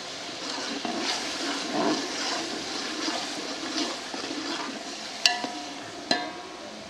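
Steel ladle stirring potatoes through watery masala in an aluminium pot, the liquid sloshing and splashing. Near the end the ladle strikes the metal pot twice with sharp, ringing clinks.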